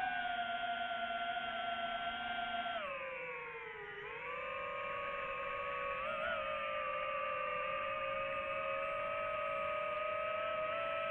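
DJI FPV drone's motors and propellers whining in flight. The pitch sags about three seconds in as the throttle eases, then climbs back and holds steady.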